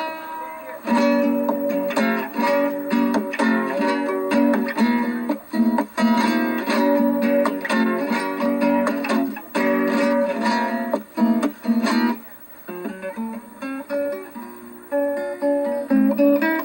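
Acoustic guitar strummed in steady chords, easing into softer, sparser playing for the last few seconds.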